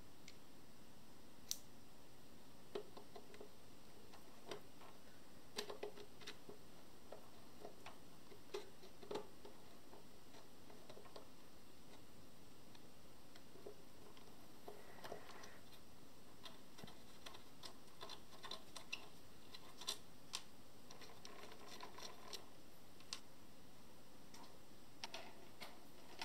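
Faint, scattered clicks and ticks of a hand screwdriver and its steel bits: bits handled and fitted, then the driver tip working screws in a metal leg-mounting plate, with denser scraping clicks in the second half.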